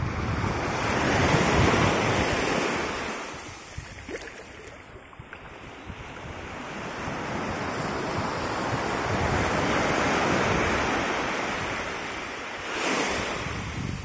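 Small surf washing up a sandy beach, surging and fading twice over several seconds, with a short surge near the end, and wind buffeting the microphone underneath.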